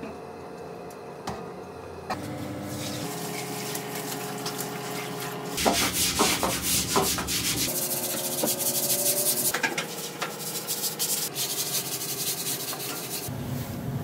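Long-handled stiff-bristle floor brush scrubbing a wet, soapy tiled floor in repeated back-and-forth strokes. The scrubbing starts about two seconds in and gets louder about halfway through.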